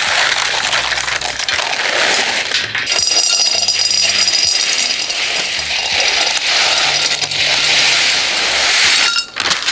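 Crunchy roasted chickpeas dropped by the handful into a glass container, a dense run of hard little clicks and rattles against the glass, with a short gap near the end.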